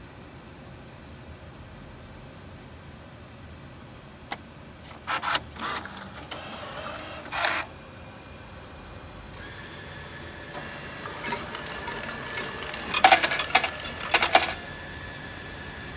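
Parking pay station's bill acceptor taking in a 10,000-yen note: a click and several short mechanical whirs. About nine seconds in, a steady motor hum sets in, and near the end the machine counts out change notes with a burst of loud rattling clatter.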